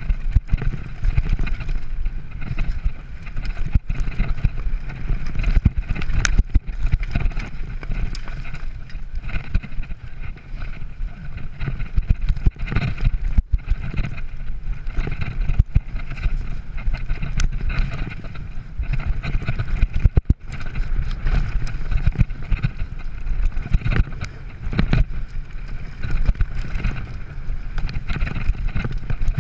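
Mountain bike ridden fast down a dirt singletrack: a steady rumble of tyres on the trail, with frequent knocks and rattles as the bike hits bumps.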